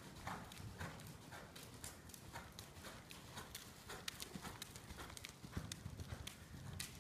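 Faint, regular hoofbeats of a ridden horse moving over the soft footing of a riding arena, about two strikes a second.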